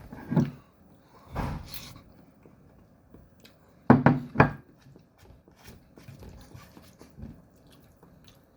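A man eating spaghetti carbonara close to the microphone: a few short mouth and breath sounds while tasting, the loudest a pair about four seconds in, with quiet chewing between.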